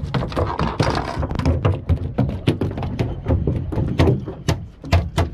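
A freshly landed jurel (yellowtail amberjack) of about 6 kg thrashing in the boat, its body and tail knocking against the hull in rapid, irregular thumps.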